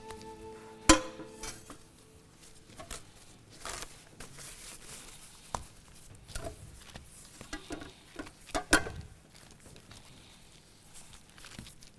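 Kitchen handling sounds of kubba dough being shaped on a plastic sheet: scattered clicks and clinks of dishes and utensils on the counter, with a sharp, ringing knock about a second in and another loud cluster near nine seconds, over light rustling.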